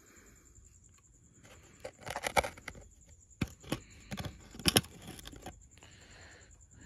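A run of sharp clicks and knocks, loudest about two and a half seconds in and again near five seconds, over a faint steady high whine.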